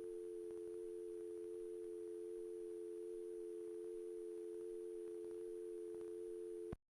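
Telephone dial tone: a steady two-note tone that holds unbroken, then cuts off abruptly near the end.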